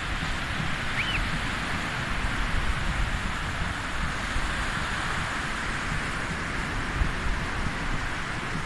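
Small waves breaking and washing up a sandy beach, a steady rushing hiss, with wind rumbling on the microphone. A short, high rising-and-falling chirp sounds about a second in.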